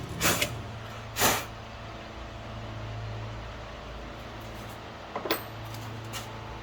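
A few short knocks and clatters, the loudest about a second in and another near the end, over a low steady hum: tools and chainsaw parts being handled on a workbench.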